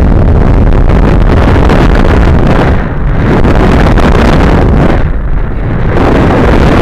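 Wind buffeting the onboard camera's microphone on a model rocket descending under its main parachute: a loud, even rush whose hiss thins out briefly about three seconds and five seconds in.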